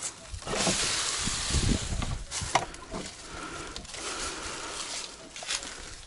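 Opening the unlocked door of an old bathhouse (banya) and stepping inside. A burst of rustling and scraping comes in the first couple of seconds, with a few dull thuds, then quieter scuffing and a faint creak.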